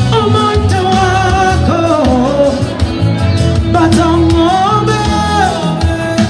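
A male singer singing live into a handheld microphone over instrumental backing, with long held notes that bend and waver.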